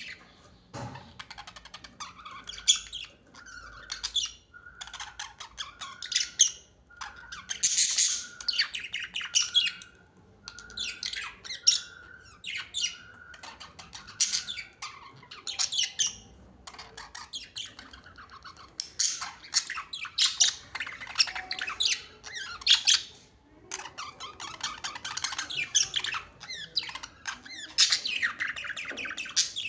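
Pet birds chattering, chirping and squawking almost without pause. A run of short, evenly pitched whistled notes repeats through the first half.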